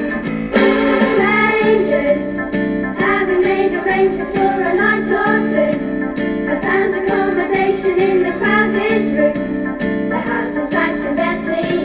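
A verse of a Christmas song sung over instrumental backing with a steady, even beat.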